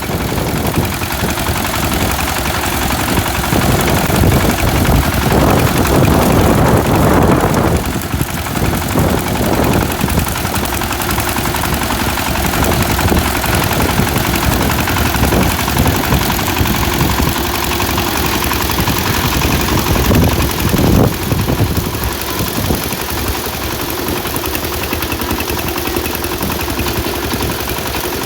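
Engine of a small locally built rice harvesting machine running steadily, with a loud rattling mechanical noise that swells for a few seconds about five seconds in and briefly again around twenty-one seconds.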